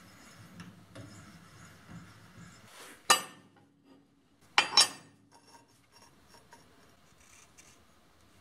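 Light handling noise, then hard metal parts knocking together: one sharp clink about three seconds in and two more in quick succession about a second and a half later.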